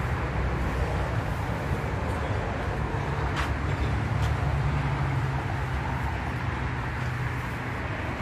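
Steady low rumble of a motor vehicle engine, swelling slightly in the middle, with two faint clicks about a second apart.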